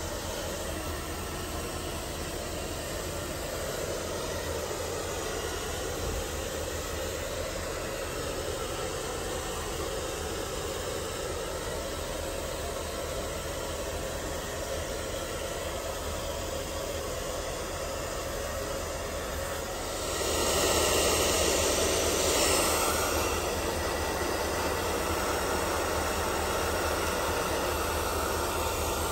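Handheld electric hair dryer blowing steadily, drying a wet plush toy. It grows louder about twenty seconds in.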